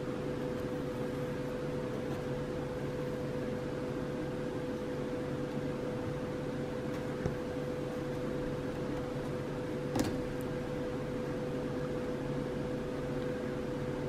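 Steady background hum with one constant tone, like a fan or electrical appliance running. A single click about ten seconds in.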